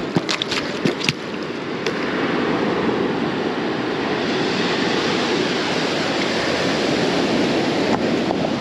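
Ocean surf washing steadily onto the beach, with several sharp knocks in the first two seconds.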